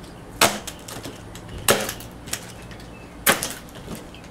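Plastic packing straps coming off a cardboard box: three sharp cracks spread over about three seconds.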